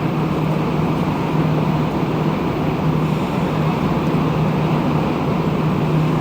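Montreal metro train with rubber tyres running: a loud, even rumble with a steady low hum that holds at one pitch, the strange noise that was filmed.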